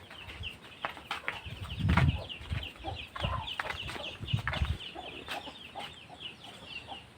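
Birds chirping in the background, a quick steady run of short high notes at about four a second. Over them come dull knocks and small clicks from hands handling motorcycle parts; the loudest knock is about two seconds in.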